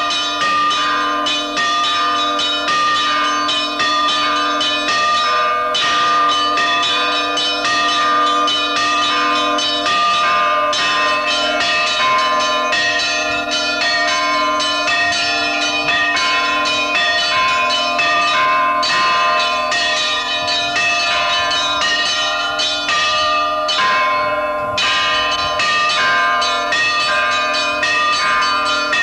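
Orthodox church bells rung by one ringer on ropes: many bells of different pitches struck in quick succession, their tones overlapping and ringing on, with a few brief lulls in the peal.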